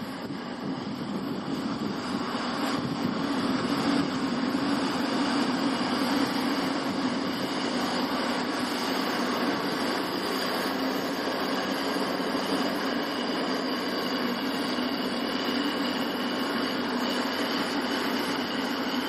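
Fendt 930 tractor's 300 hp diesel engine running steadily under load while ploughing heavy clay with a six-furrow plough.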